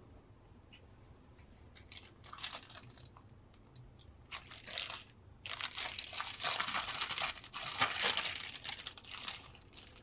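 Thin clear plastic bag crinkling and crackling as it is unwrapped from a round figure display base by hand. A few short crackles come first, then dense crinkling from about halfway through until near the end.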